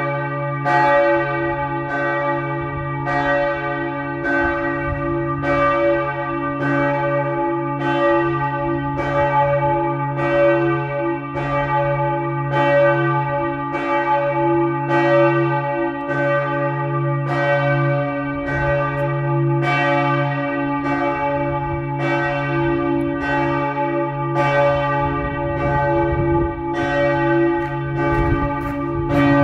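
Several church bells pealing together in a bell tower, with strikes following one another about once every second. Their low tones keep ringing between the strikes.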